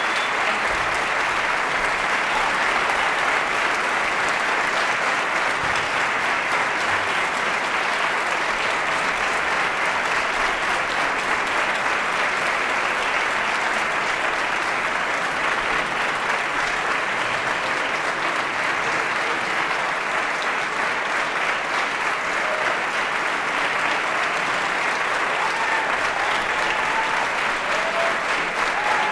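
Concert audience and orchestra applauding: steady, dense clapping with no break.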